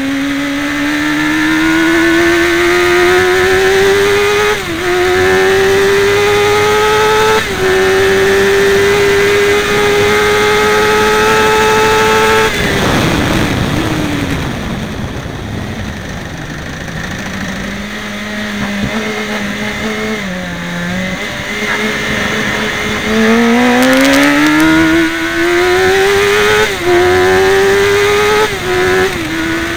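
Car engine heard from inside the cabin on a circuit lap, revving up hard through the gears with a brief dip in pitch at each of two upshifts. About halfway through it lifts off and the revs fall for a corner, running lower for several seconds. It then pulls hard again, with two more quick upshifts near the end.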